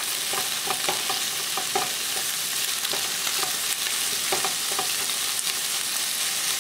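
Turkey bones and scraps sizzling steadily as they brown in a hot nonstick skillet, with the scrapes and light clacks of a utensil turning the pieces over in the pan.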